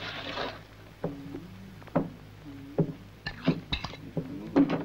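Eating sounds: a utensil clinking and knocking on a plate in a string of short, irregular strikes, with a brief rustling noise at the start, over a steady low hum.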